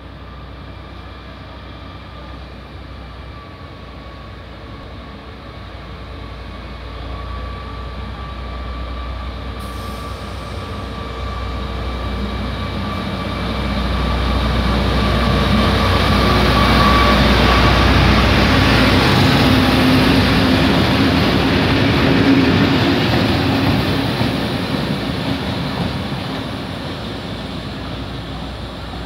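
Diesel locomotive hauling a work train of track-maintenance machines passing by: the engine's drone with a steady whine grows louder as it approaches, is loudest about two-thirds of the way through, then fades as the train moves away.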